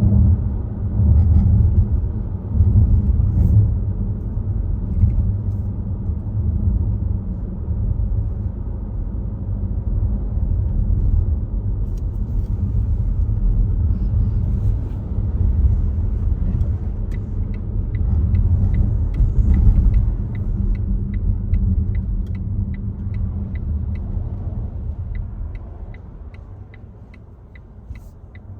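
Low road and tyre rumble of a Volvo XC60 on the move, heard from inside the car. From a little past halfway a turn-signal indicator ticks evenly, about one and a half ticks a second, and near the end the rumble fades as the car slows.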